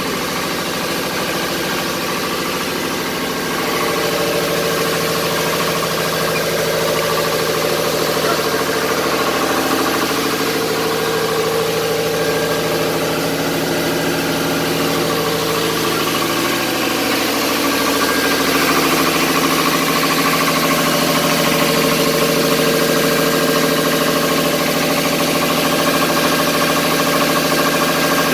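Boat's inboard diesel engine idling steadily, growing louder about 4 seconds in and again around 18 seconds.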